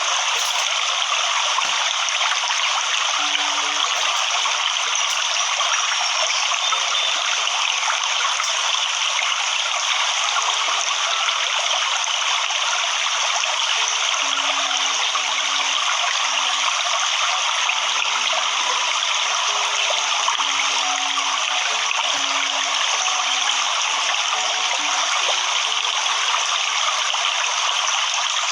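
Waterfall: water rushing steadily in an even hiss with no breaks.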